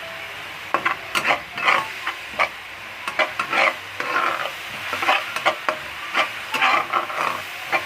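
A spatula stirring and scraping blended spice paste frying in oil in a wok: irregular scrapes and knocks, starting just under a second in, over a steady sizzle.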